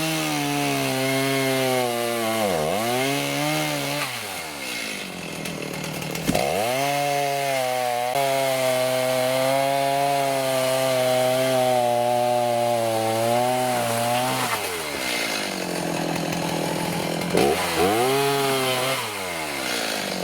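Chainsaw revving up and cutting storm-downed dead trees, with its engine pitch sagging under load. It makes three runs: a short one with a dip in pitch near the start, a long steady cut through the middle, and a brief burst near the end. It drops back to idle between them.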